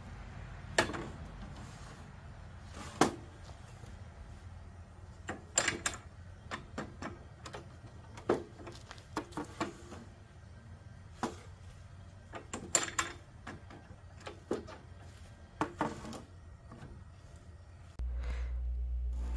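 Wooden boards knocking and clattering against a portable table saw's table and fence as they are handled and lined up: a scattering of sharp knocks, some in quick clusters. A low steady hum comes in near the end.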